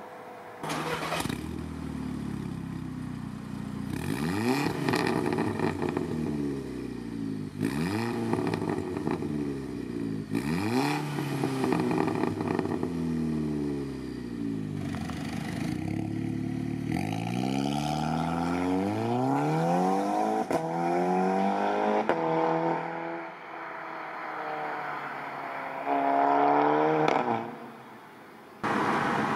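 Tuned Volkswagen Golf 6R's turbocharged four-cylinder engine through a Milltek Race exhaust, revved again and again: each rev climbs sharply and then falls back, with a few sharp cracks among them. The sound cuts off abruptly near the end.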